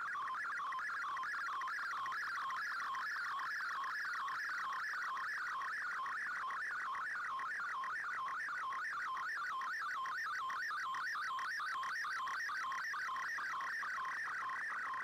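MFSK colour picture transmission received on an Icom IC-R8600 shortwave receiver: a steady warble of quickly sliding tones that carries the image pixel by pixel as it decodes.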